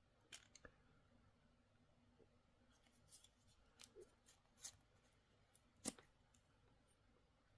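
Near silence broken by a handful of faint, short clicks and taps from a Zippo lighter being handled, the loudest about six seconds in.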